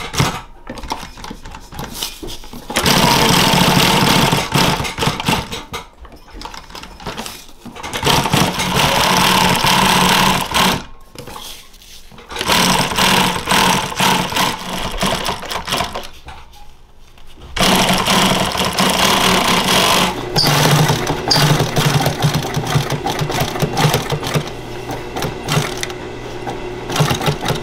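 Industrial sewing machine stitching a knee pad's fabric cover. It runs in several bursts with short pauses between them, and the longest run comes in the second half.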